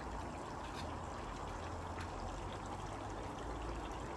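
Steady outdoor background noise, an even hiss over a low rumble, with a couple of faint light ticks.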